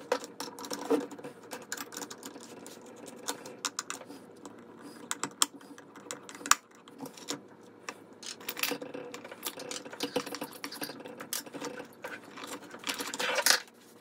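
Rapid, irregular small clicks and taps from hand work at an old garbage disposal's wiring compartment: wire nuts being twisted off and a grounding screw undone to free the power cord. One sharp knock comes about six and a half seconds in, and a longer scraping burst near the end.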